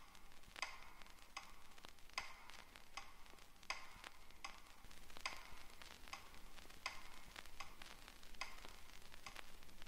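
Mechanical pendulum metronome in a wooden pyramid case ticking steadily, a sharp tick about every three-quarters of a second.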